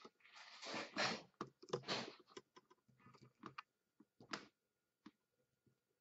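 Rustling and scattered light clicks of multimeter test leads and probes being handled, with the clicks thinning out after a few seconds.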